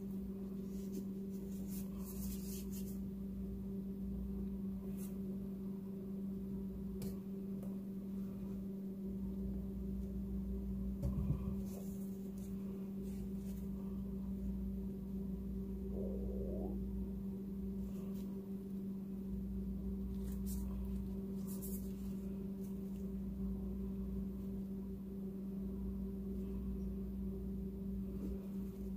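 Steady low hum with a fainter higher tone above it, over a low rumble, with a few faint taps and a brief knock about eleven seconds in.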